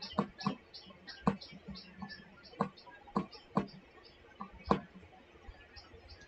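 A stylus tapping and clicking on a tablet screen as a word is handwritten. The sharp clicks come irregularly, one at each pen stroke.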